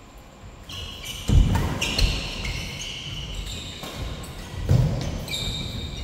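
Badminton doubles rally on a synthetic court: sneakers squeaking on the court mat, heavy thuds of footfalls and lunges, and sharp pops of racquets striking the shuttlecock, starting under a second in.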